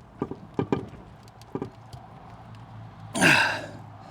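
A few short knocks and clicks of hose fittings being handled, then about three seconds in a man's loud, brief grunt that falls in pitch, straining at a tight fitting.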